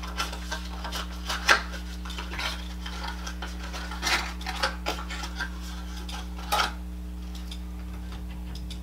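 A small paperboard advent box being opened and handled, with the crinkle of a plastic bag of jigsaw puzzle pieces: a run of light clicks and rustles, loudest about a second and a half in and again past six seconds, dying away near the end. A steady low hum runs underneath.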